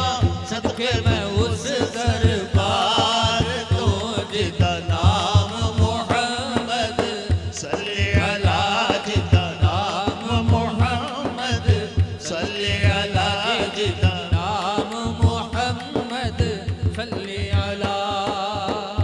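Devotional naat sung by men's voices, wavering melodic lines over a steady, pulsing low beat.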